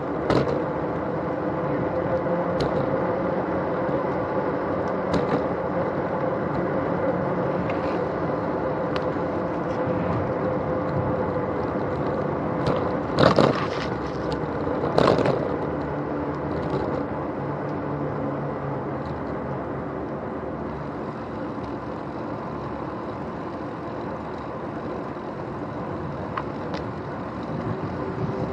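Bicycle rolling along a paved path, heard through a camera mounted on the handlebar stem: steady tyre and wind noise with a faint hum. About halfway through come two sharp jolts, roughly two seconds apart, as the wheels run over bumps where the path meets brick paving.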